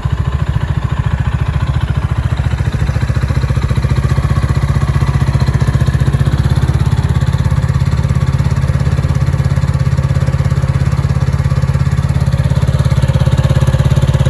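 Gilera AC4 250cc single-cylinder four-stroke motorcycle engine idling steadily through its exhaust, with an even, rapid run of low firing pulses.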